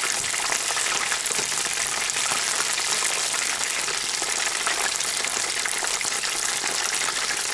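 Potato-starch-coated chicken thigh pieces (karaage) deep-frying in a pan of hot oil: a steady, crackling sizzle.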